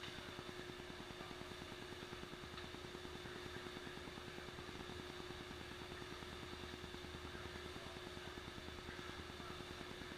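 Steady machine hum with a constant mid-pitched tone over a low drone, with no clear impacts.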